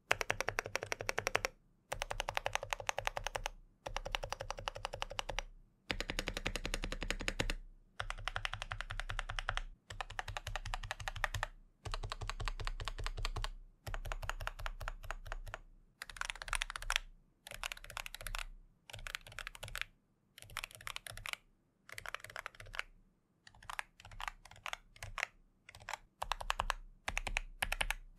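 Typing on a CoolKiller CK108 magnetic-switch keyboard fitted with lubed Outemu Dida silent switches: quick runs of keystrokes, a second or two each, with short pauses between. The silent switches keep the clatter damped and fairly quiet.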